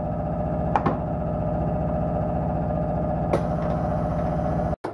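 Steady motor hum from a workshop machine, one held tone over a fast low pulsing, with two light clicks, cutting off suddenly near the end.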